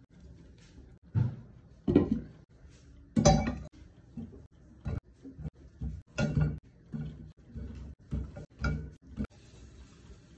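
Irregular knocks and clinks of food and cookware being handled: apple quarters set down into a steel cooking pot, about ten sharp strikes, some with a short ring.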